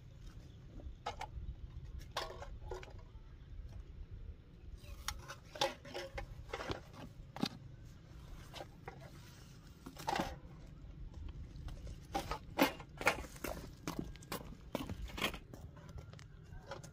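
Irregular light clicks and knocks, more frequent in the second half, over a low steady rumble.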